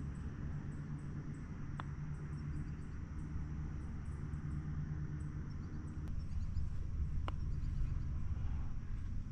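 Insects chirping in a fast, even, faint high pulse over a steady low rumble, with a low hum that stops about six seconds in and two faint clicks.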